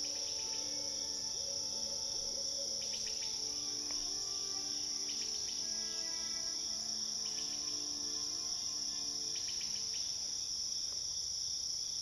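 Steady chorus of crickets, with a few brief chirps now and then and faint, soft held tones underneath.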